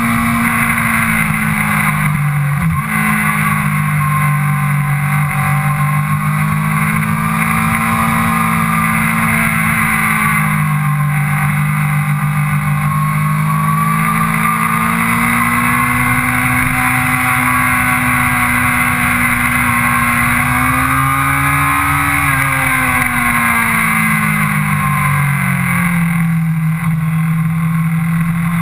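Sport motorcycle engine running hard, its pitch rising and falling with throttle and gear changes, over a steady rush of wind noise.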